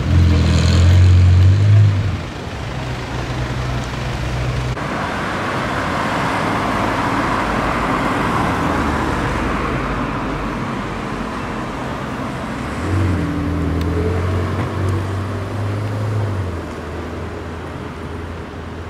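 Ferrari 488 twin-turbo V8s on the move: a Novitec-tuned 488 pulls away loudly in the first two seconds, then a second 488, a Spider, passes with steady traffic and tyre noise and gives a rising burst of revs about thirteen seconds in that fades a few seconds later.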